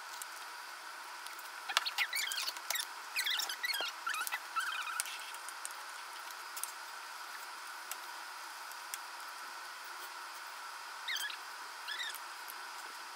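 A pen squeaking and scratching across paper in quick drawing strokes: a busy run of squeaks about two to five seconds in, then two short ones near the end.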